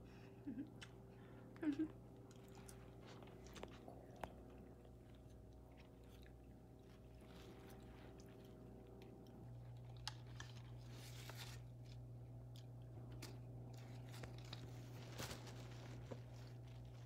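Faint chewing and small crunches of people eating snacks, with soft scattered clicks of plastic forks, over a steady low hum. Two short squeaky sounds come in the first two seconds.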